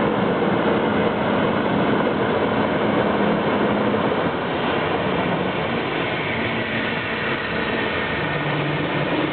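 Gas-turbine jet engine running: a steady, dense roar with a faint whine, easing slightly in level and shifting in pitch about four seconds in.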